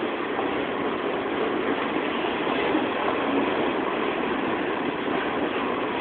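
Freight train boxcars rolling past: a steady rush of steel wheels on the rails.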